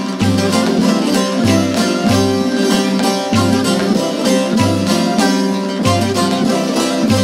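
A Turkish folk saz ensemble plays an instrumental zeybek tune. Plucked bağlamas lead the melody over a low bass note that comes back about once a second.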